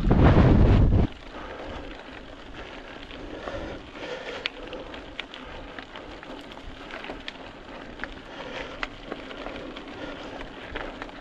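Mountain bike riding over a rough track: steady tyre noise with scattered clicks and rattles. A loud gust of wind hits the microphone in the first second, then cuts off suddenly.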